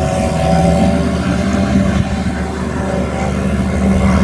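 Large diesel engines of silage machinery running steadily: a John Deere 8600i self-propelled forage harvester driving along, then a tractor pulling a loaded forage wagon.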